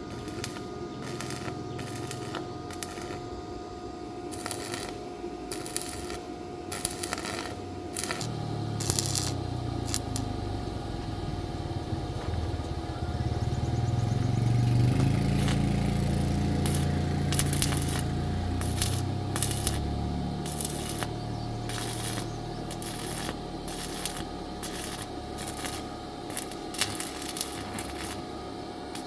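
Repeated light metallic clinks and clicks of tools and small metal parts being handled. A low rumble swells and fades in the middle.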